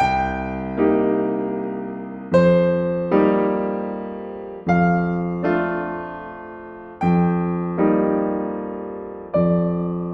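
Slow, gentle solo piano music: chords struck in an even pattern, a low chord and then a second one about a second later, repeating every couple of seconds, each left to ring out and fade.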